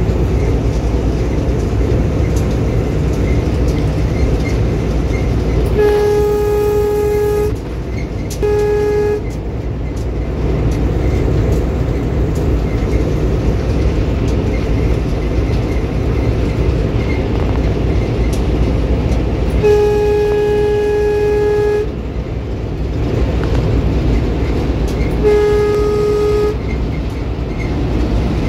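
Locomotive running, heard from inside its cab as a steady loud rumble. The horn is sounded four times on one steady note: a long blast about six seconds in, a short one just after, another long blast around twenty seconds, and a shorter one near the end.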